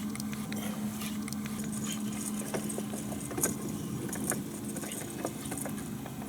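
Steady engine hum that fades out about three seconds in, with scattered small clicks and knocks of handling gear.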